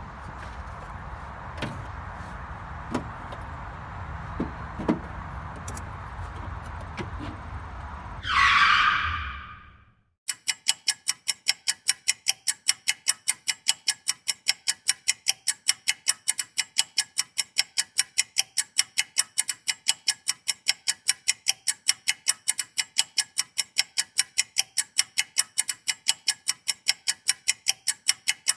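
Scattered clicks and knocks of bolting work over a steady low hum. About eight seconds in comes a whoosh, then a brief gap, then an even, rapid clock-like ticking of about four ticks a second.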